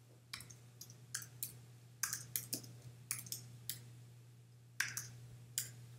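Computer keyboard keystrokes clicking irregularly as a name is typed, with a short pause near the end, over a faint steady low hum.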